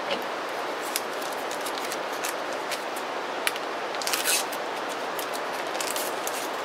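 Paper wrapper being peeled off a pat of butter: light crinkling and ticks of paper, loudest about four seconds in, over a steady hiss.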